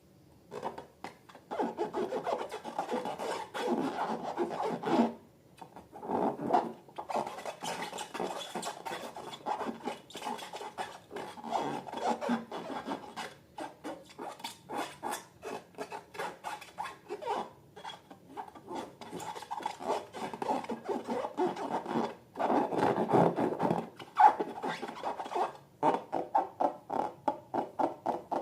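Slime being stirred and squished by hand: rapid, uneven rubbing and squelching strokes in runs of a few seconds, broken by brief pauses.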